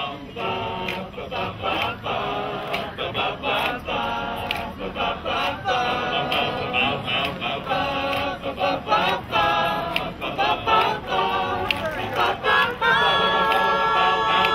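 Male a cappella choir singing in close harmony, in short chords, then holding a long chord near the end.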